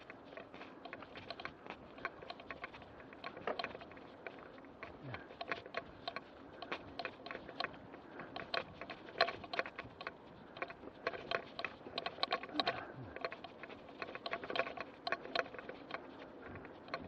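Mountain bike rattling over a bumpy dirt and grass track: a fast, irregular run of clicks and knocks.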